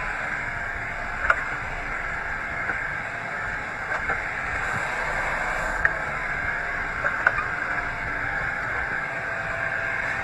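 Gully-emptying truck's vacuum suction unit running with a steady rushing noise, with a few short, sharp metallic clicks and knocks as its arm handles the cast iron drain grate.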